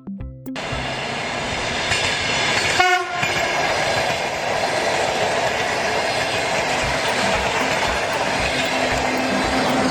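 A train running past with a steady rumbling noise, and a short horn blast about three seconds in.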